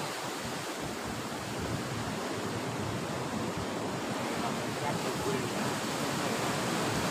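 Sea surf washing against a rocky shore, a steady rush of noise with no separate breaks standing out.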